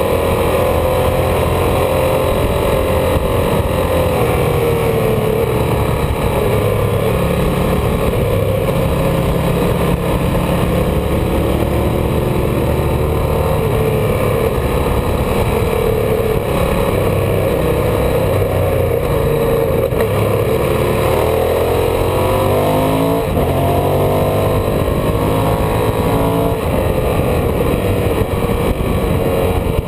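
Ducati L-twin motorcycle engine running at road speed, its pitch drifting up and down with the throttle, under a steady rush of wind noise.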